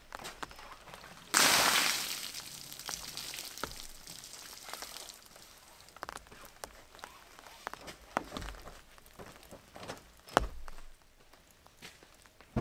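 Gear being handled at the back of a car in light rain: a sudden loud rush of noise about a second and a half in that fades over a few seconds, then scattered knocks and clicks.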